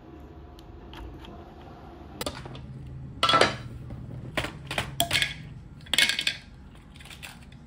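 Dried eggshells dropped by hand into a plastic food processor bowl: a string of light clattering knocks that begins about two seconds in, the loudest about a second later.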